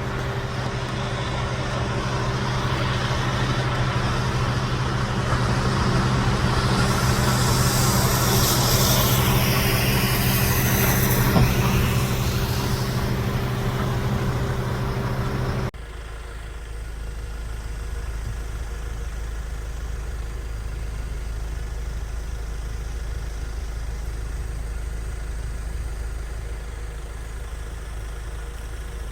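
A motor vehicle's engine idling with a steady hum, while a louder rushing noise swells and fades over several seconds. About halfway through, the sound cuts abruptly to a quieter, lower steady engine rumble.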